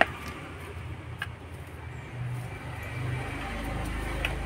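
Low engine hum of a motor vehicle, swelling toward the end, with a sharp click at the start and two fainter clicks later.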